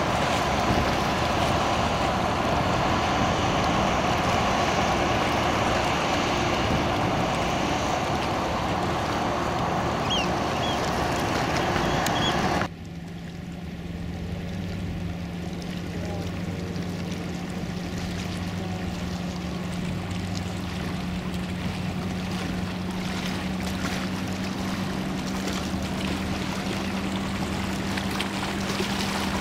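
Boats on the water: first the loud rush and rumble of a passing car ferry's engines and wash, then, after an abrupt cut about halfway, a quieter steady motorboat engine drone that rises slightly in pitch near the end.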